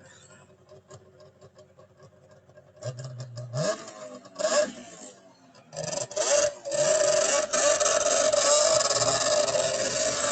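Snowmobile-engined go-kart with a CVT: the engine idles faintly, revs up in a few bursts about three seconds in, then runs steadily and loudly under way.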